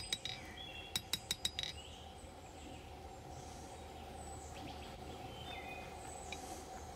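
Hand hammer striking thin hot steel on an anvil with a bright ring: a blow at the start, then a quick run of about five blows about a second in, drawing out the blade's bevel. After that a steady hum with a few faint chirps.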